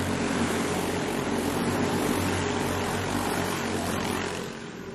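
A pack of racing karts passing close by on a dirt oval, their engines running hard together. The sound fades near the end as the karts pull away.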